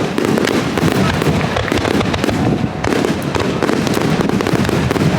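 Aerial fireworks shells bursting directly overhead in quick, overlapping succession. Dense sharp cracks merge into a continuous loud barrage.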